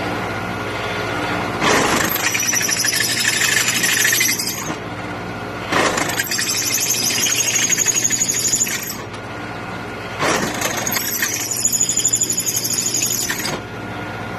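Drill press running with a 3/8-inch bit cutting into water-cooled stainless steel in three pecks of about three seconds each. The bit squeals high while it cuts, and between pecks only the motor's steady hum is left.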